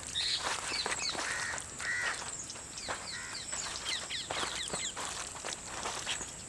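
Birds calling all around: many short, quickly falling chirps repeated in quick runs, with a few longer, harsher calls mixed in.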